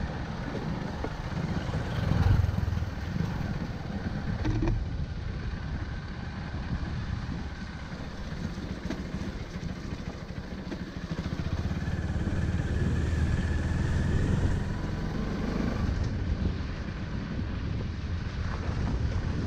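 Motorcycle engine running while the bike rides a muddy, gravelly dirt road, with a low rumble throughout. It gets louder briefly about two seconds in and again for a few seconds past the middle.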